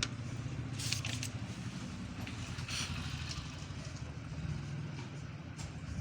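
Steady low background rumble, with brief scratchy noises about one second in and again near three seconds.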